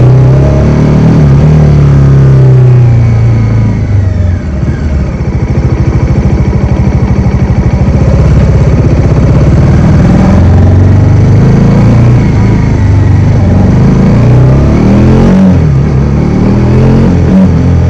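Bajaj Dominar 400's single-cylinder engine under way, its pitch falling about four seconds in to a slow, even thumping, then climbing again as it accelerates, rising and falling with throttle and gear changes near the end.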